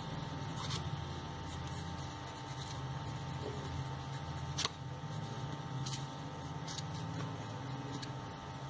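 Pink colored pencil scratching back and forth across crepe paper while the paper's edge is coloured, with a few light clicks and a steady low hum underneath.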